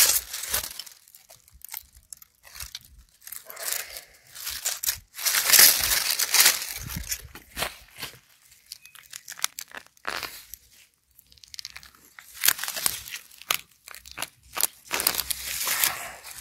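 Dry garlic leaves rustling and wood-chip mulch and soil crunching as garlic plants are handled and pulled up out of the bed, in irregular bouts with short pauses between.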